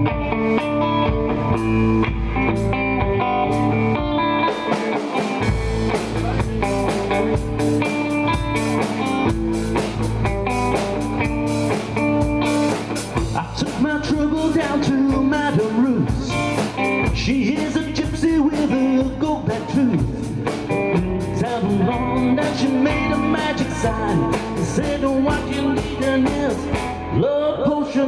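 Live blues rock and roll played on an electric guitar and a drum kit, with a man's singing voice coming in about halfway through.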